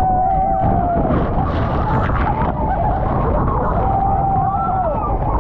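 Waterfall spray pouring down on an open boat with a steady rushing noise. Over it, passengers let out long held screams, one through the first second and another about four seconds in.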